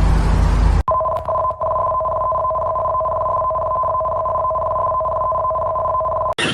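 Emergency alert attention signal: two steady tones sounding together for about five and a half seconds. They start abruptly just under a second in, stutter with a few brief dropouts soon after, and cut off suddenly near the end. Before the tones there is a loud, noisy rumble.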